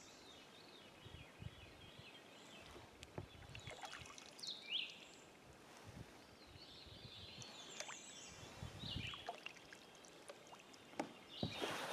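Kayak being paddled: water pouring and trickling off the paddle blade with each stroke, and scattered light knocks of the paddle against the hull.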